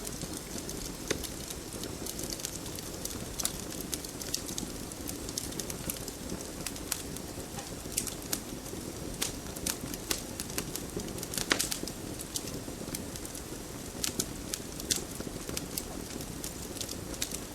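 Wood fire burning, with a steady low rush of flames and irregular crackles and pops of burning wood; one louder pop about eleven and a half seconds in.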